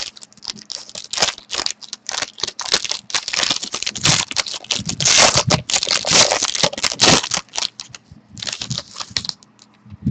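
Trading cards and their packaging being handled: irregular crinkling, rustling and scraping, with a short lull near the end.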